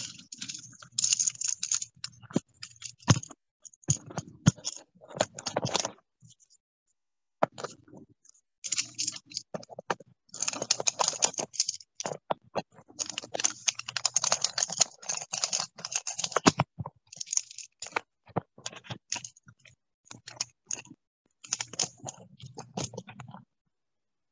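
Irregular clicking, tapping and clattering of hands handling a serger's plastic parts, in bursts with short pauses, with a low hum under the louder stretches.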